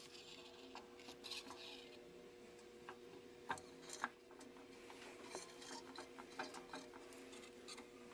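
Small metal clicks and taps from Char-Lynn steering valve parts being handled and fitted, with two sharper clicks about three and a half and four seconds in, over a faint steady hum.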